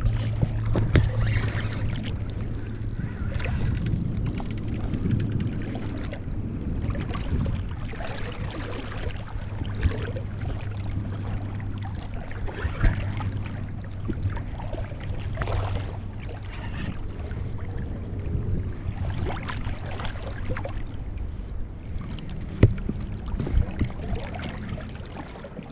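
Choppy bay water sloshing and splashing around a camera held at the surface, with many short splashes and knocks and a steady low hum underneath.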